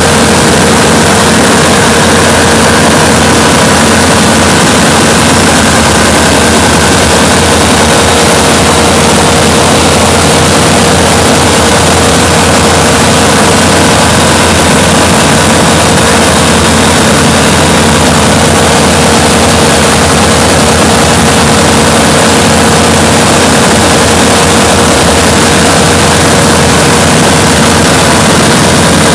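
Light aircraft's engine and propeller running steadily in flight, heard loud from inside the cockpit as a constant drone with rushing air noise and no change in power.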